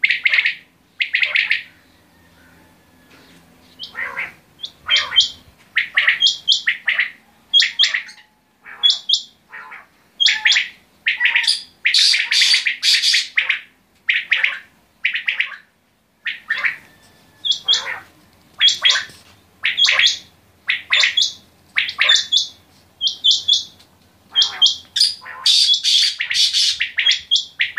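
Several caged common quail calling, short sharp calls in quick succession, one or two a second, with overlapping bursts from more than one bird about halfway through and near the end.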